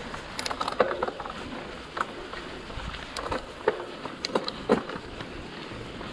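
Mountain bike riding along a dirt trail: a steady rush of tyre and wind noise, broken by sharp clicks and rattles from the bike jolting over bumps, four or five of them standing out.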